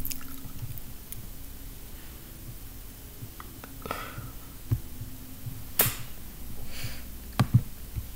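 Quiet room tone with a faint steady low hum, broken by a few faint sharp clicks and a short breathy sound about four seconds in.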